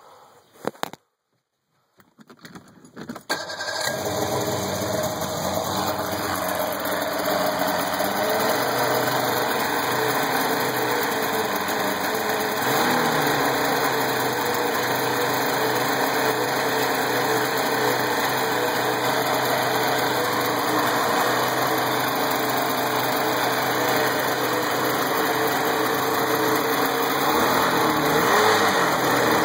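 Rebuilt Force L-Drive two-stroke outboard motor starting about three seconds in, then running steadily at idle, its pitch drifting up and down a little now and then as the idle is adjusted.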